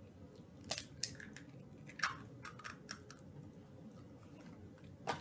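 A few faint, light clicks and taps from an egg and its shell being handled while it is added to cookie dough ingredients.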